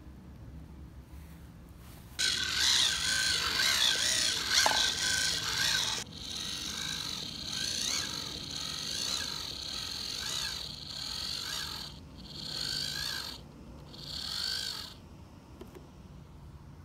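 High-pitched outdoor animal calls, chirping that wavers in pitch. They begin about two seconds in and then swell and fade in waves of about a second each. No engine is running.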